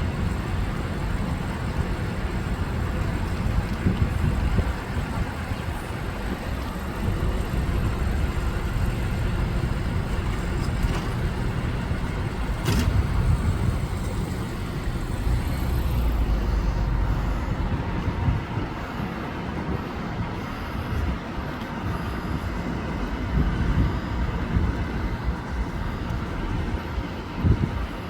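Outdoor road traffic noise, a steady uneven rumble of passing cars, with one sharp click about halfway through.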